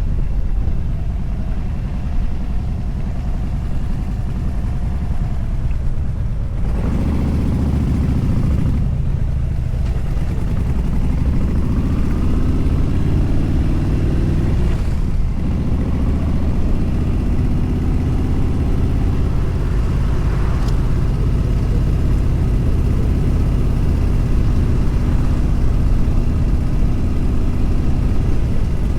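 Motorcycle engine and wind rush at highway speed. Partway through, the revs climb steadily, then drop at a gear change, after which the engine runs at a steady pitch.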